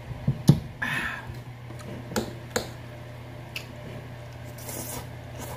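Close-up eating sounds from a mukbang of palabok noodles: mouth smacking and chewing, with several sharp clicks of a fork against the plate and a short hissy slurp near the end.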